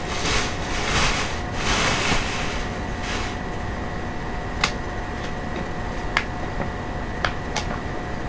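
Mukbang eating noises: several short bursts of rustling noise in the first three seconds, then a handful of sharp clicks of chopsticks and chicken bones being handled at the plastic tub and table, over a steady background hum.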